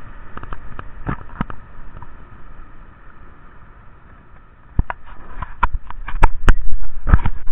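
Wind buffeting a handheld camera's microphone aboard a sailboat under way, with the rush of water alongside. Sharp knocks and clicks from handling and the boat come through, thicker and louder from about five seconds in.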